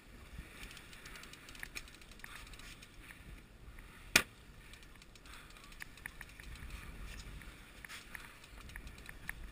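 Wind and sea noise on a GoPro's microphone, with faint scattered ticks and one sharp knock about four seconds in.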